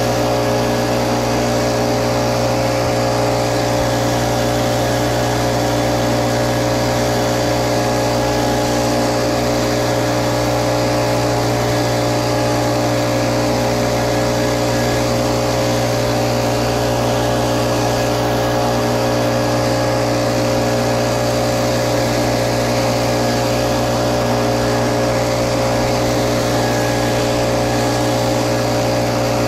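Little Wonder Optimax walk-behind blower running steadily at full throttle, its engine and fan blasting pine needles across the ground. The pitch and loudness hold constant throughout.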